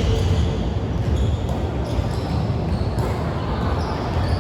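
Volleyball being played in a gym: ball strikes and players' movement over a steady low rumble.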